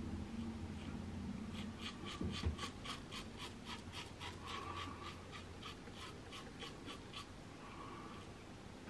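Quick short scraping strokes of a PAA La Criatura slant double-edge safety razor cutting lathered stubble under the nose, about four strokes a second. The strokes start about two seconds in and stop near the end.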